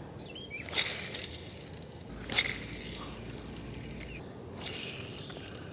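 Insects droning steadily in a high-pitched band, with two brief rustling swishes about one and two and a half seconds in.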